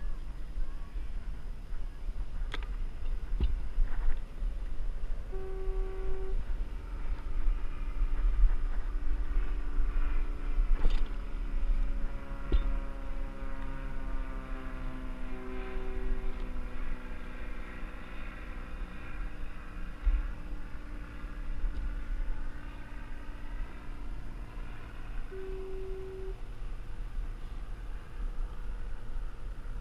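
A boat engine passing, its pitched drone slowly falling over about fifteen seconds, over a constant low rumble. A short horn tone, likely the harbor fog signal, sounds three times about ten seconds apart.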